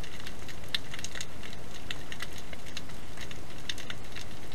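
Underwater ambience picked up by a submerged camera: a steady low rush with irregular sharp crackling clicks, several a second.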